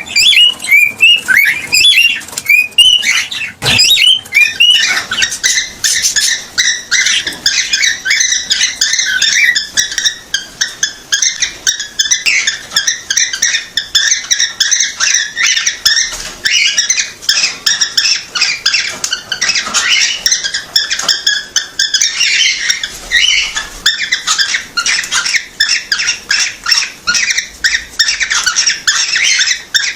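Cockatiel chirping and whistling in a rapid, continuous chatter of short high chirps. In the first few seconds the chirps are separate and rise and fall; after that they crowd together densely. There is one short bump about four seconds in.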